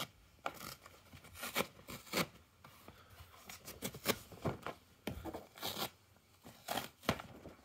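Rustling and rubbing of a cloth-textured protective cover as it is lifted and drawn off a boxed monitor, in short irregular swishes.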